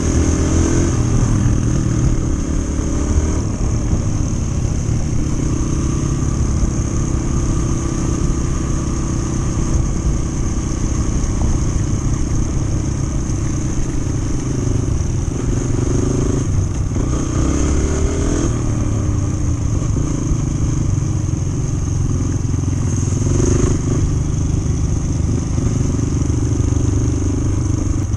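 Yamaha TT-R125 trail bike's single-cylinder four-stroke engine running steadily while riding along a dirt road, heard from a camera mounted on the bike. The revs swell briefly twice, about halfway through and again later.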